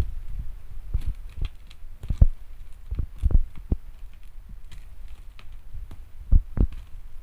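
Plastic stretch wrap on a parcel being cut and torn open with a blade: irregular dull thumps and crinkling, with a low steady hum underneath.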